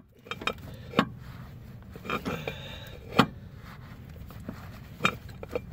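A few scattered sharp metallic clicks and knocks of a hand wrench as a freshly broken-loose suspension link nut is twisted out, the loudest about three seconds in.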